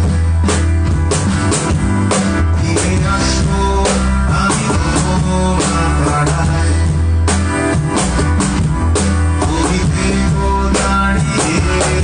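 Instrumental band music with drum kit, bass and guitar, playing with a steady beat.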